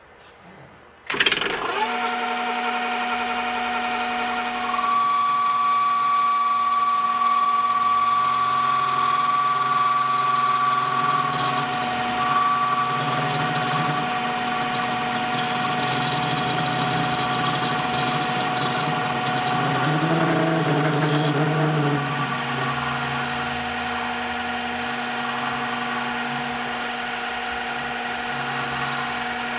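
Metal lathe switched on about a second in, then running steadily with a whine from its motor and gearing as the three-jaw chuck spins a metal tube.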